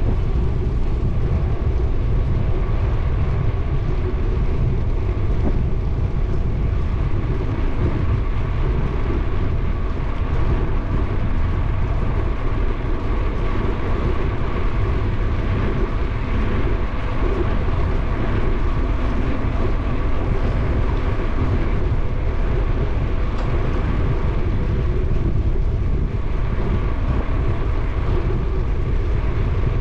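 Wind rushing over the camera microphone and bicycle tyres rolling on asphalt during a steady ride: a constant, loud rush, heaviest in the low end.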